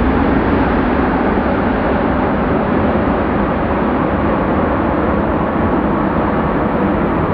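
Boeing 767-300ER's jet engines during the landing roll after touchdown: a loud, steady rumbling roar that eases slightly.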